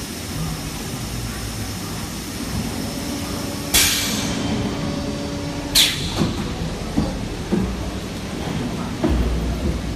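IBM80H injection blow molding machine running with a steady hum, broken by two sharp mechanical bangs about two seconds apart. Several lighter knocks follow, and a low rumble comes in near the end.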